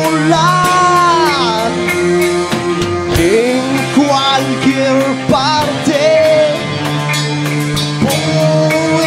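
Live experimental rock band playing: held chords under a lead line that slides up and down in pitch.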